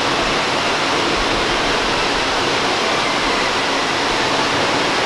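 Steady, even rush of flowing water in a brick storm-drain tunnel.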